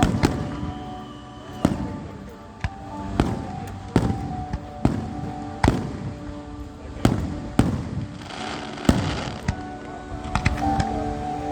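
Fireworks bursting, a dozen or so sharp bangs about a second apart, with a spell of crackling near the end. Music plays steadily underneath.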